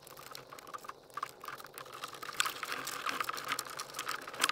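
Quick, irregular clicking and rattling of plastic wiring connectors and cables being handled and plugged in behind a car dashboard.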